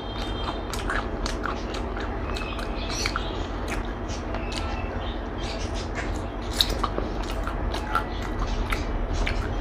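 Close-miked eating: chewing and biting of food with many small irregular clicks and smacks, over a steady low hum.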